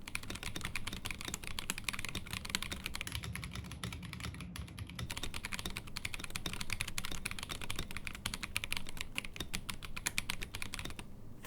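Fast typing on a handmade wooden-cased mechanical keyboard: a dense, unbroken stream of key clacks as the newly built board is sound-tested, stopping shortly before the end.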